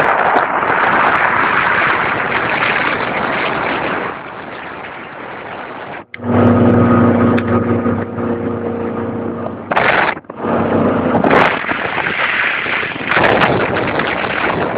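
Motorboat under way with its 225 hp Volvo Penta engine: a steady rush of wind and water, with the engine's even drone coming through plainly for a few seconds in the middle. The sound breaks off abruptly twice.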